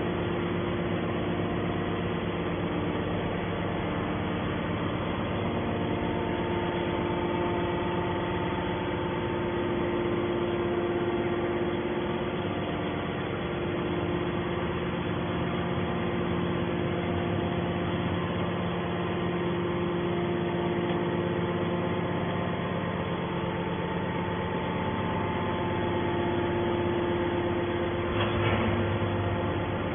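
Hydraulic can baler's power unit running with a steady mechanical hum, its level unchanging for the whole stretch.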